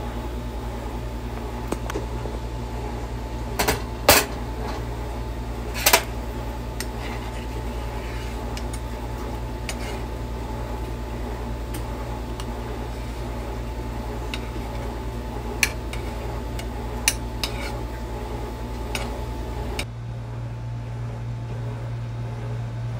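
A few sharp clinks of a glass pot lid and a spoon against a cooking pot over a steady low hum, with the loudest clinks about four and six seconds in. The hum changes abruptly near the end.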